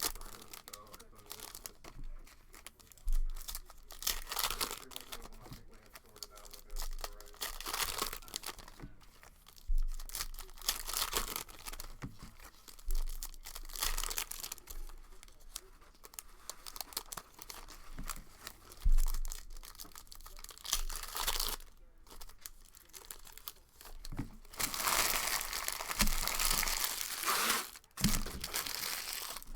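Plastic wrap and trading-card pack wrappers being torn open and crinkled while a Donruss basketball blaster box is opened, in irregular rustling spells with a few sharp knocks of the box being handled.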